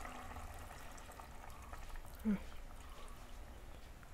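Coconut milk poured in a faint stream into a clay pot of simmering crab curry, calming its sizzling boil. One brief, short rising sound comes about halfway through.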